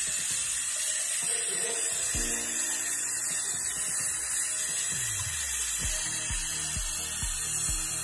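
Steady hiss of a gas brazing torch flame heating a refrigerator's copper charging pipe to seal it. Background music plays over it, with a steady beat coming in about six seconds in.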